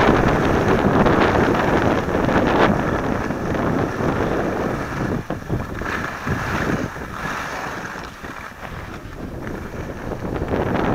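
Wind rushing over a helmet or body camera's microphone, with skis sliding over groomed snow during a downhill run. The rushing fades through the middle as the skier slows down near other skiers, and picks up again near the end as the run speeds up.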